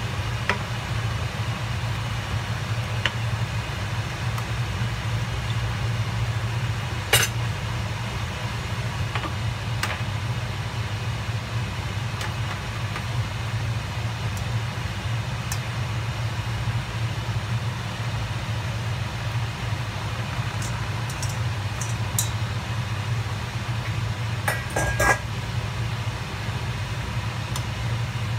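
A steady low hum, with occasional clicks of a cooking utensil against a stainless steel frying pan and a short cluster of clatter near the end.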